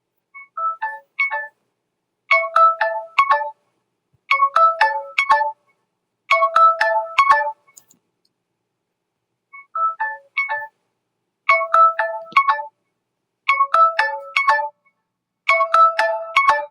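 Mobile phone ringtone playing a short melody of quick, clear notes in little phrases of three to five notes. The tune pauses and starts over about ten seconds in, looping.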